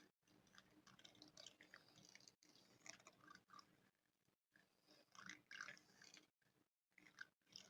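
Spoon scratching on a microphone, heard quietly and very close up: irregular scratchy strokes in several bursts, broken by brief silent gaps.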